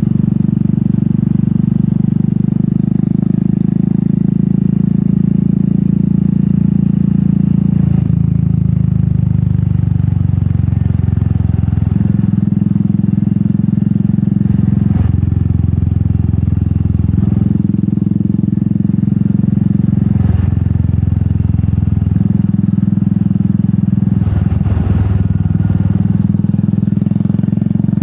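Royal Enfield Meteor 350's single-cylinder engine running through an aftermarket sport exhaust while riding. The note dips and changes pitch briefly several times, about every four to five seconds, then settles again.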